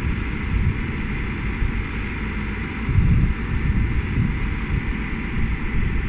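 Caterpillar backhoe loader's diesel engine running steadily.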